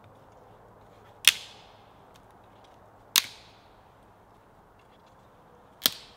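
Three sharp cracks about two seconds apart, each trailing off in a short echo.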